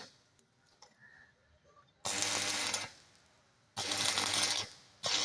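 A power tool runs in three short bursts, each under a second, with a hissing whir over a low hum.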